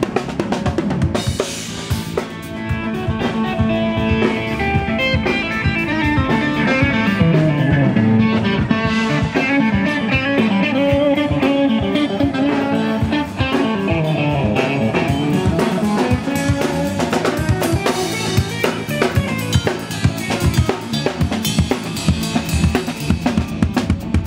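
A live band playing at a soundcheck: a drum kit keeping a steady beat with kick, snare and cymbals, under an acoustic guitar, with a few low notes sliding down and up in pitch.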